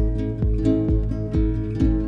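Background music: acoustic guitar picking over a steady low beat.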